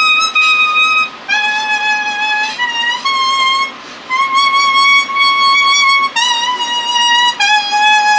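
Kusabue leaf whistle, a leaf held to the lips and blown to play a slow melody: long, clear held notes, most over a second, stepping between high and lower pitches with brief breaks between them.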